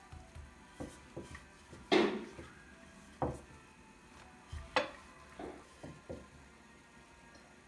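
Kitchen dishes and utensils being handled: a string of separate knocks and clinks, the loudest about two seconds in with a short ring after it, and another sharp clink about five seconds in.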